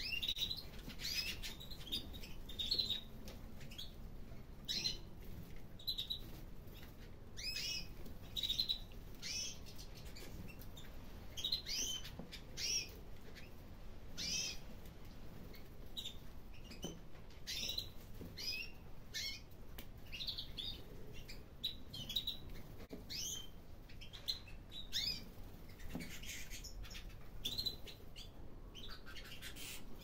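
Red mosaic canaries in a flock giving short chirping call notes, scattered irregularly throughout, sometimes several in quick succession.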